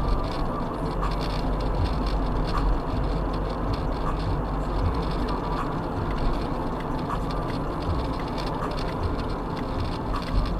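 Steady road and engine noise inside a car's cabin cruising at about 50 km/h, picked up by a dash camera's microphone, with a deep rumble underneath.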